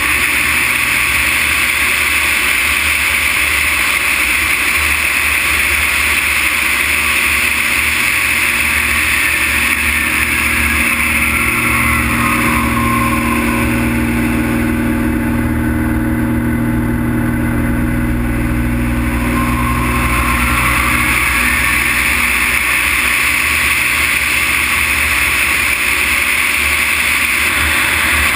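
Extra 330 LC aerobatic plane's six-cylinder engine and propeller running under heavy airflow rush over a wing-mounted camera. From about twelve seconds in the rushing fades and a lower, steady engine drone comes forward for several seconds, then the rushing returns near twenty-one seconds.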